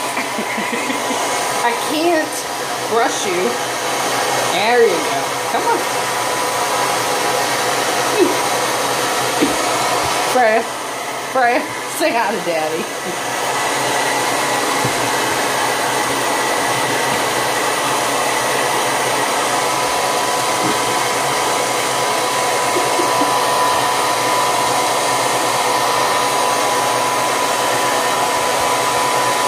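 Handheld hair dryer running steadily, a constant blowing noise with a steady whine in it. A few short pitched sounds that rise and fall come over it in the first half.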